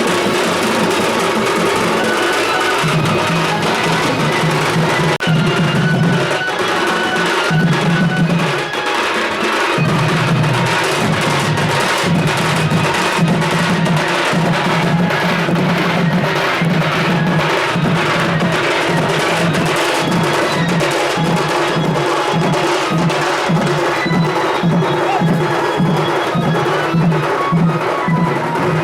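Folk music driven by fast, even drumming, loud and continuous.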